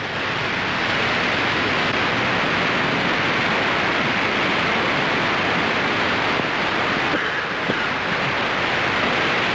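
Steady rushing noise of ocean surf with no breaks, swelling up in the first second.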